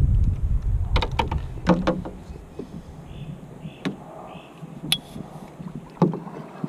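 Canoe paddle and fishing gear knocking against the canoe's hull, a quick cluster of knocks about a second in and single knocks later, as paddling starts with soft splashes of the paddle in the water. Wind buffets the microphone at the start.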